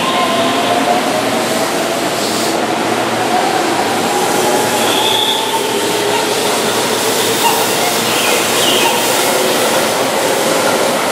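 Keihan electric commuter train pulling out of the station: a steady rumble of wheels on rail with faint gliding whines from the traction motors.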